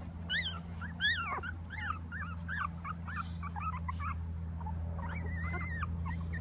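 Two-week-old miniature schnauzer puppies whimpering: a string of short, high-pitched cries, two or three a second, with one longer held cry near the end. They are uneasy at being set down outside for the first time.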